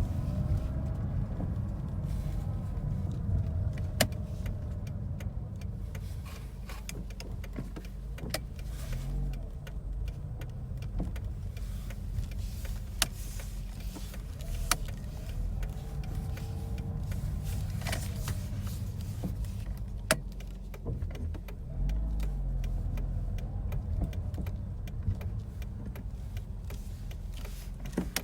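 Mazda FD3S RX-7's twin-rotor rotary engine running steadily at low revs, its pitch rising and falling gently a few times, with a few sharp clicks along the way. The front rotor's leading and trailing spark plug leads are swapped.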